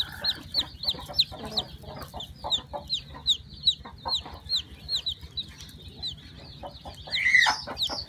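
Domestic chicken chicks peeping: a steady run of high, falling peeps, about three a second, with faint clicks of shell and straw. A louder, lower call breaks in about seven seconds in.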